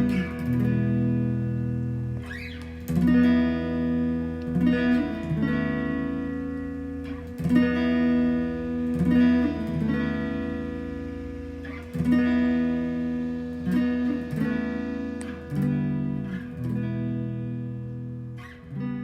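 Intro music: guitar chords strummed and left to ring, changing every second or two.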